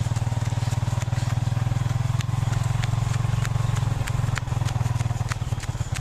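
A small motorcycle engine running slowly with a fast, even putter. A child's footsteps in rubber sandals on a gravel path sound over it as sharp, scattered ticks.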